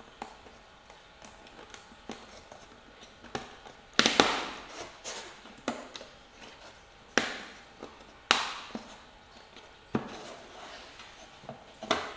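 Thin pine kumiko lattice strips clicking and knocking as they are pressed into their interlocking notches by hand. The knocks come irregularly: faint ticks at first, then about seven sharper ones from about a third of the way in.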